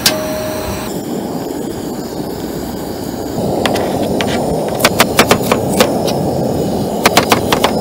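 Small cleaver-style kitchen knife chopping cucumber on a plastic cutting board: short runs of quick knife taps, a couple about four seconds in, then a run of about five and another near the end, over a steady low rushing noise.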